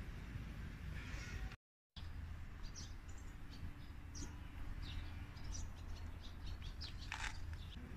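Small birds chirping in short, repeated calls over a low outdoor background rumble, with a brief gap of silence about a second and a half in.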